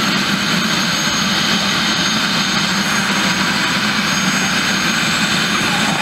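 Eurocopter EC130 B4 helicopter's turboshaft engine and rotor running steadily on the pad, a constant noise with a thin high turbine whine over it.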